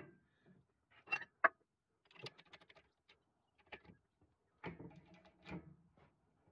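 A few sharp metal clinks and knocks as a brass spacer, a steel tube and the part are set up and handled on a small hand press, the sharpest about a second in, with a cluster of lighter taps around two seconds and more near the end.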